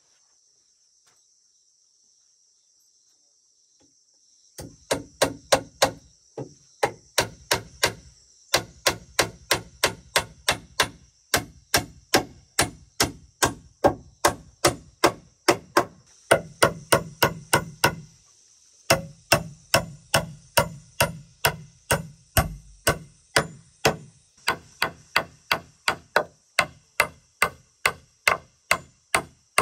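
Claw hammer striking wooden logs in quick runs of blows, about three a second, with short pauses between runs. The first few seconds are nearly silent. A steady high insect drone sounds behind the blows.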